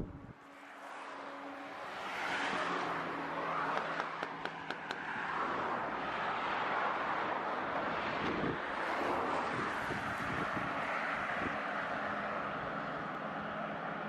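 Car road noise: a steady rushing of tyres and wind with a faint engine hum, swelling about two seconds in, with a few light clicks around four to five seconds in.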